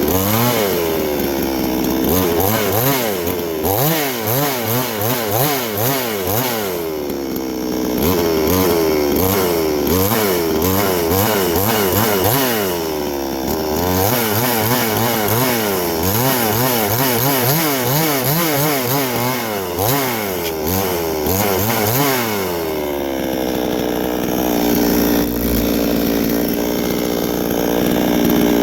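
Chainsaw cutting along a log to shave off bumps, its engine pitch rising and falling over and over as the chain bites and the throttle is worked. It settles to a steadier, lower run a little after twenty seconds in, then picks up again.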